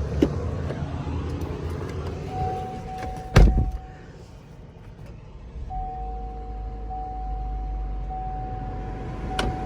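A vehicle engine idling with a low rumble, a loud thump about three and a half seconds in, and a steady high electronic tone that sounds twice, the second time for several seconds.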